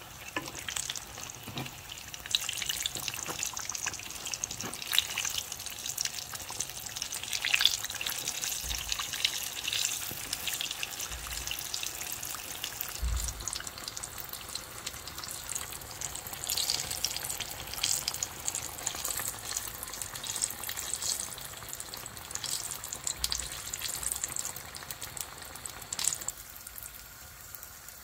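Donut dough frying in hot oil: a steady crackle and sizzle of many small pops, dropping noticeably quieter about two seconds before the end.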